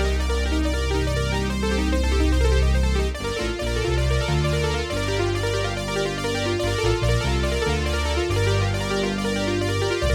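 Yamaha PSR-373 arranger keyboard playing a pop-rock piece: synthesizer and electric-piano voices over a bass and accompaniment pattern. The bass line changes to a busier pattern about three seconds in.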